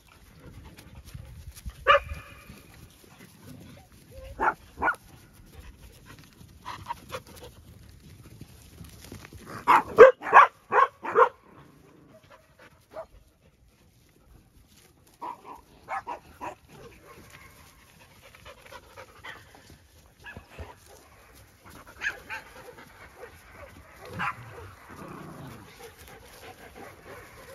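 Several dogs barking in short, scattered bursts, with a quick run of about six barks around ten seconds in, the loudest part. The dogs are worked up.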